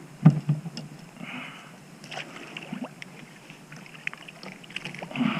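Water splashing and gurgling around a kayak, with a sharp knock against the hull just after the start and short bursts of splashing about a second in and near the end.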